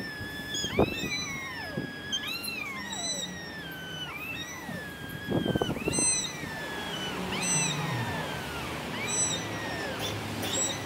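Two tomcats yowling at each other in a threat standoff. The footage runs at triple speed, so their drawn-out growling wails come as quick, high, overlapping rising-and-falling calls, one after another, with a few dull thumps about halfway through.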